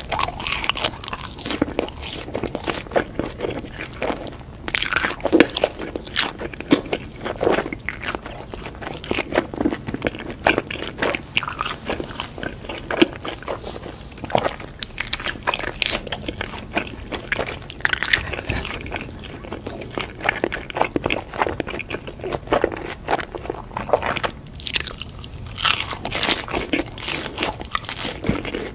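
Close-miked biting and chewing of crispy fried food from a skewer: a steady run of crackling crunches, with louder bites about five seconds in and again near the end.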